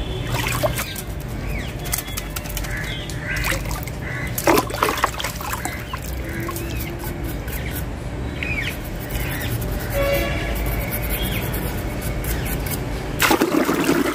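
Water sloshing and splashing in a plastic tub as hands scrub and squeeze aquarium tubing under water. There are louder splashes about four and a half seconds in and again near the end.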